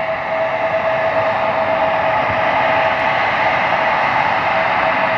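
Embraer 170 jet airliner taxiing, its two General Electric CF34-8E turbofans running at low power: a steady jet hiss with one constant whine, slowly growing louder.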